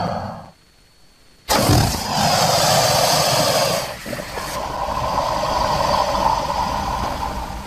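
Crocodile growling: one call fades out in the first half-second, then a long noisy growl starts suddenly about a second and a half in and runs about six seconds before fading near the end.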